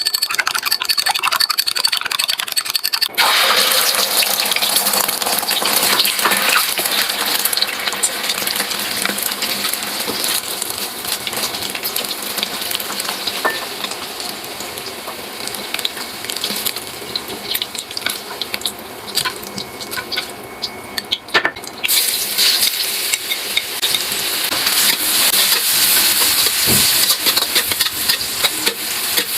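Food frying in a hot pan, a steady sizzle with a spatula stirring and scraping. The sound changes abruptly about 3 seconds in and again near 22 seconds.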